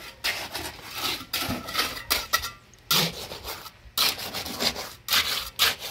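Steel pointed trowel scraping and smoothing freshly poured wet concrete in a wooden stair-step form, in a series of short, repeated strokes.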